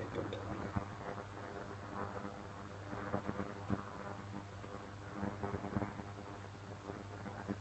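Pan of water simmering on a gas hob for poaching eggs: a steady hiss and low hum, with a few light clicks scattered through.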